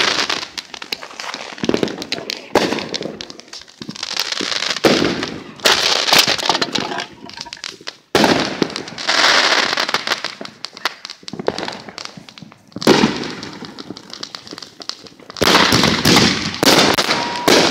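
Consumer fireworks going off: dense, crackling pops in repeated waves, each cluster lasting a second or two, with short lulls between.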